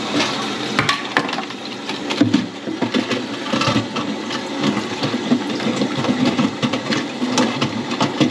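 Irregular plastic clicks and knocks as a replacement flush valve is pushed into place inside a concealed toilet cistern. The loudest knock comes about two seconds in.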